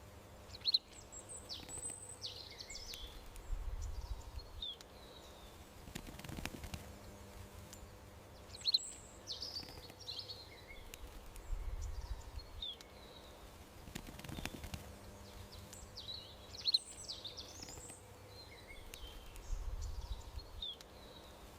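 Small songbirds chirping and twittering in short high phrases over a steady outdoor background. The same pattern recurs about every eight seconds, each time with a sharp click, the loudest sound, and a brief low rumble.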